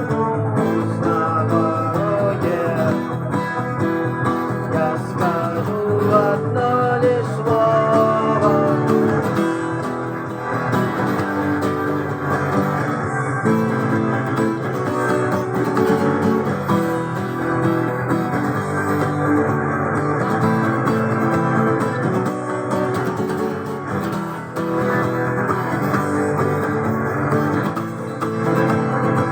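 Guitar playing a rock song along to a recorded backing track, with a melody line over steady chords in the first few seconds.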